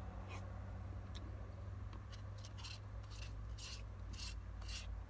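Spoon scraping and digging into a Blizzard ice-cream cup: a run of short, sharp scrapes, more frequent in the second half, over a steady low hum.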